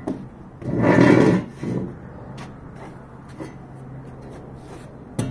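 Metal spade blade scraping along a plywood subfloor as it is dragged, a long scrape about a second in and a shorter one right after, then a sharp knock near the end.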